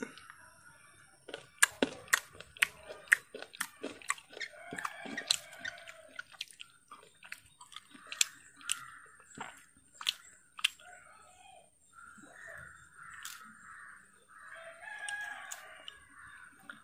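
Sharp, irregular knocks of a knife or utensil while green mango is cut and mixed with masala, most of them in the first ten seconds or so. A rooster crows in the background.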